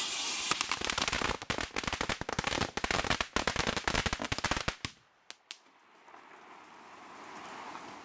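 A string of firecrackers going off in a fast, dense run of bangs. It stops about five seconds in, and two last pops follow.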